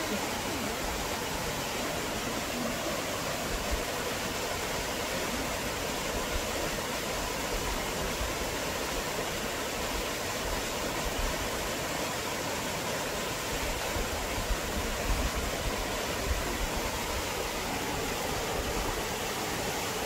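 Small mountain waterfall pouring into a rock plunge pool: a steady, even rush of falling water.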